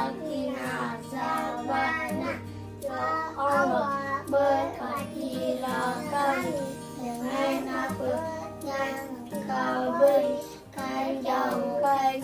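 Several children reciting a doa, a prayer before the meal, together in a sing-song chant, with a steady music bed underneath.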